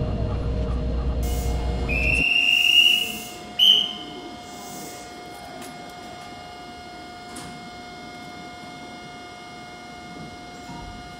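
Rumble of a sped-up Tobu 100 series Spacia ride that cuts off suddenly about two seconds in. A conductor's whistle then blows twice, a longer slightly rising blast and a short sharp one, over the steady hum of the train standing at the platform.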